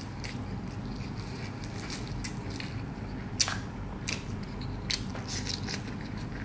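Quiet eating sounds: chewing, with a few sharp clicks of a metal spoon against a metal plate, the loudest about three and a half seconds in.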